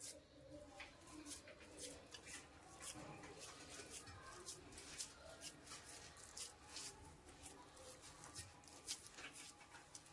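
Near silence, with faint soft handling noises and small scattered clicks of hands pressing and rolling vegetable seekh kebab mixture.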